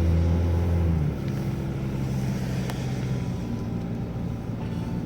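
Truck engine and road noise heard from inside the cab while driving: a steady low hum that eases off about a second in and then runs on more quietly.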